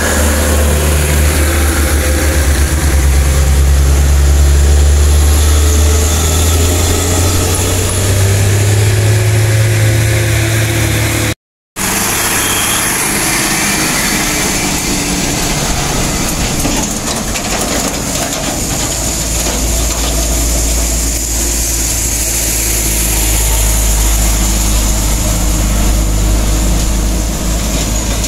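Diesel engines of loaded trucks working up a steep climb. A loaded sugarcane truck pulls past with a deep engine note that rises slowly for about ten seconds. After a moment of silence, a red cargo truck passes close by, its deep rumble building toward the end.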